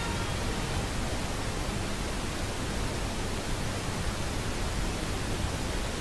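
Steady hiss with a low hum from an old film soundtrack, with no music or voice over it.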